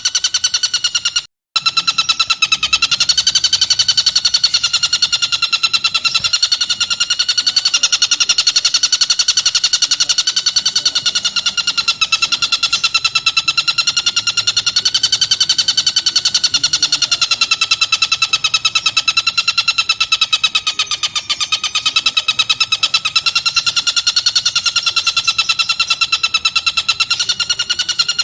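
Tengkek buto kingfisher calling in a very rapid, unbroken trill that wavers slightly up and down in pitch, broken by a brief gap about a second in.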